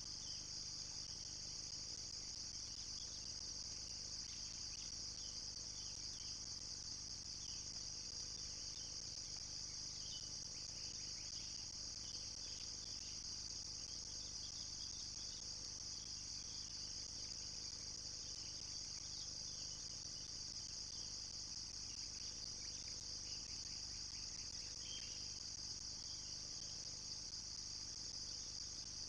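A steady high insect chorus that never lets up, with faint scattered chirps underneath.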